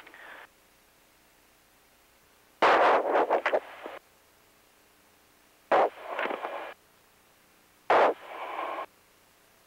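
Three short bursts of radio static on the shuttle's communication loop, each about a second long and opening with a sharp click as a microphone keys, between stretches of low steady hiss.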